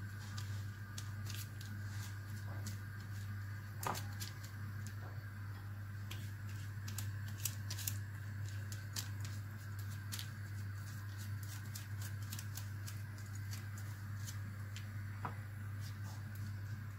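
Pastry brush dabbing beaten egg onto raw pastry patties on baking paper: scattered light ticks and soft paper crinkles, over a steady low hum.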